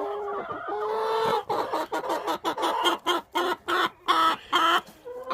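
Several chickens clucking and calling in their coop: a run of short pitched clucks and squawks, with a couple of longer drawn-out calls in the first second.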